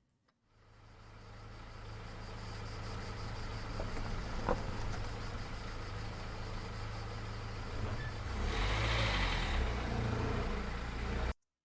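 Recorded car engine sound effect played back: it fades in, runs steadily at idle, swells louder near the end as the car pulls away, then cuts off abruptly.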